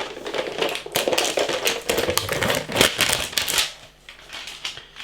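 Plastic noodle-pot packaging crinkling and rattling, with quick irregular clicks and taps, as the pots are ripped open; it dies down about three and a half seconds in.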